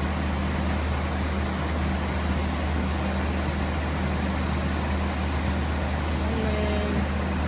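Steady, loud engine and road noise of a moving vehicle, an even rumble that does not change.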